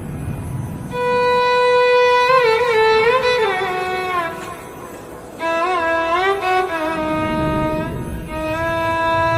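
Music: a single melody of held notes with slides and wavering pitch, in a violin-like tone, over a low rumble. The melody starts about a second in, thins out around the middle, and comes back with long held notes.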